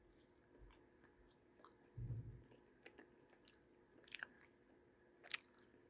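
Faint close-up chewing of a crisp fried beef and cheese mini taco, with scattered crunches and a dull thump about two seconds in.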